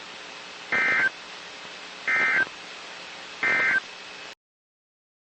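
Emergency Alert System end-of-message (EOM) data bursts: three short, identical buzzy digital chirps about a second and a half apart, over faint static, marking the end of the severe thunderstorm warning. The audio then cuts to silence near the end.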